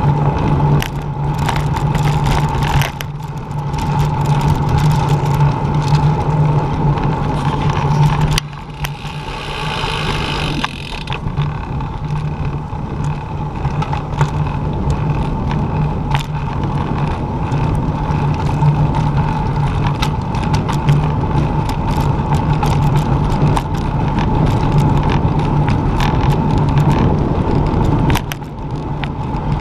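Riding noise of a bicycle heard from a handlebar-mounted camera: tyres rolling on pavement and wind rush, with a steady low hum underneath. The rush drops briefly a few times.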